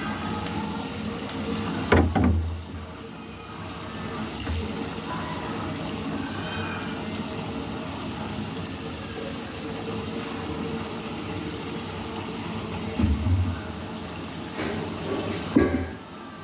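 Water sloshing and splashing in a sink as a tilapia is cleaned and rinsed by hand, with a few sharp knocks, about 2, 13 and 15 seconds in.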